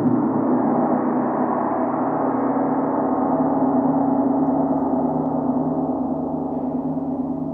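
Large hanging gong ringing with a dense, sustained wash of overtones, kept going with a mallet. It fades slightly near the end.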